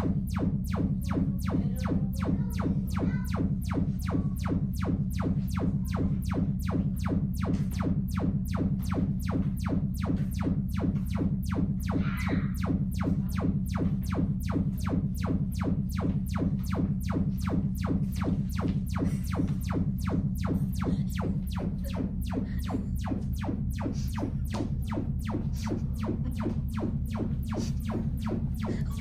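Sonos Play:5 speaker playing its Trueplay room-tuning test signal: a steady, even train of short pulsing tones, about three a second, heavy in the bass, while the room is being measured.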